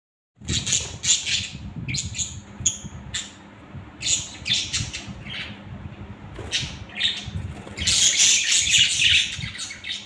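A cage of budgerigars chirping and chattering, with wings flapping as birds fly about; the chatter thickens into a dense burst about eight seconds in. A steady low hum runs underneath.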